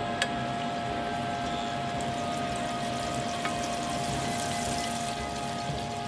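Butter melting and sizzling softly in a stainless-steel saucepan for a béchamel sauce, stirred with a wooden spatula that clicks against the pan a couple of times. A steady high hum runs underneath.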